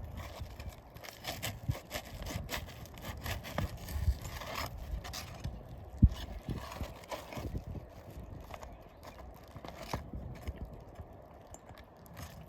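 Hand tools knocking, tapping and scraping on an asphalt shingle roof as a shingle is unsealed and its nails pried out, in irregular clicks and knocks with one sharp, loud knock about six seconds in.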